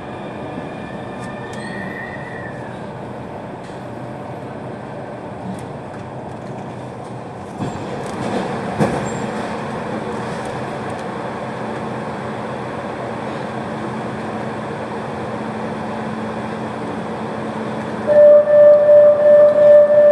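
Barcelona Metro Line 10 train heard from inside the car: steady running noise, with a short gliding motor whine in the first seconds. About eight seconds in, the noise grows louder and fuller. Near the end a loud, rapid beeping of about three beeps a second sets in: the train's door-closing warning.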